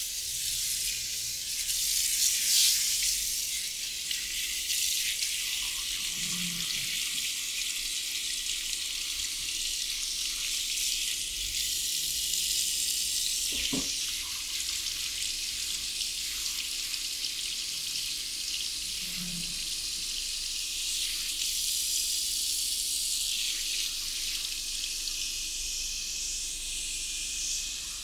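Water running steadily from a tap into a sink at a barber's wash basin; it comes on suddenly at the start, with a few faint knocks along the way.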